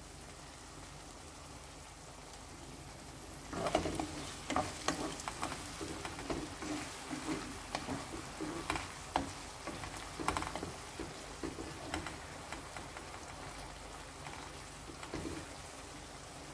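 Chopped tomatoes, green peppers and onion with tomato paste sizzling in oil in a pot. From about three and a half seconds in to about twelve seconds, a wooden spoon stirs and scrapes through the mixture in irregular strokes, with one more stroke near the end.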